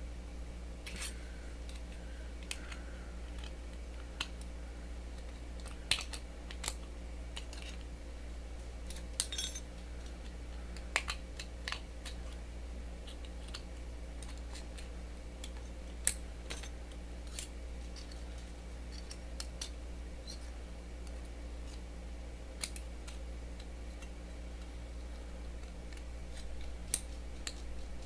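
Scissors cutting through thin aluminum drink-can metal, giving sharp, irregular snips and clicks a second or so apart.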